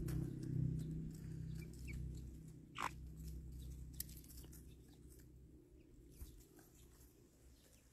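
Hens pecking and scratching in wood shavings close to the microphone: many small ticks and crunches over a low rumble that fades after a few seconds. One brief louder sound comes just under three seconds in.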